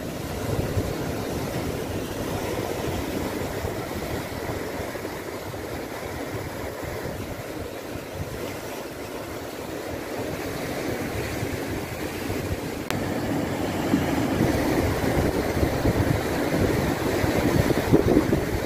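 Surf breaking and washing over shoreline rocks, with a fluttering rumble of wind on the microphone. It grows louder and gustier in the last few seconds.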